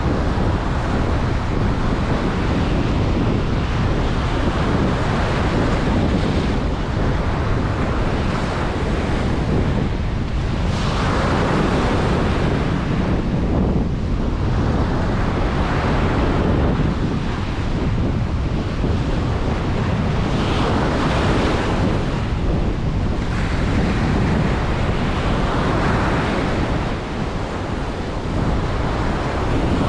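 Ocean surf breaking on a beach, a steady wash that swells every few seconds as each wave comes in, with wind rumbling on the microphone.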